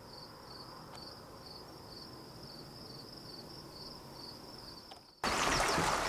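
Crickets chirping faintly in a steady rhythm, about two chirps a second. About five seconds in this cuts off abruptly to the loud, even rush of creek water.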